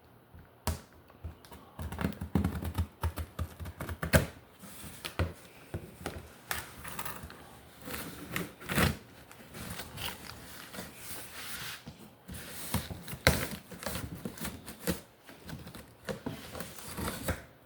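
A large cardboard box being handled and opened by hand: irregular knocks, scrapes and rustles.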